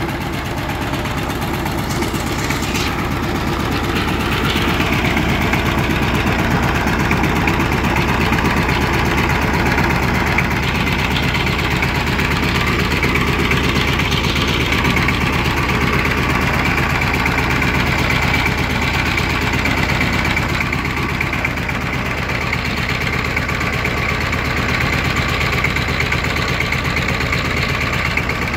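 Single-cylinder diesel engine of a two-wheel power tiller running steadily as the tiller is driven slowly along a road.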